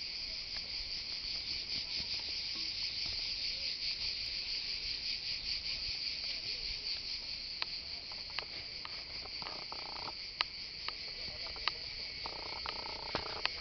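Cicada chorus: a dense, steady, high-pitched buzz, slightly louder in the first half. From about halfway on, a few sharp clicks cut through it.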